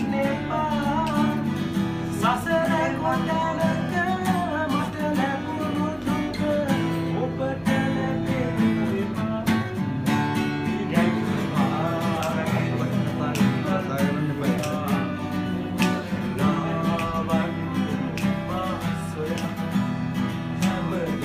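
Acoustic guitar strummed steadily in a chord pattern, with a voice carrying a wavering melody over it at times.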